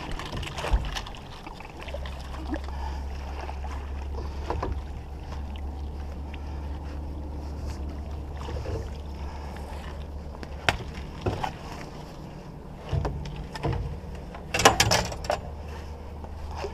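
Boat motor running with a steady low hum while trolling, with scattered knocks and clicks on the boat and a louder cluster of clatter about fifteen seconds in.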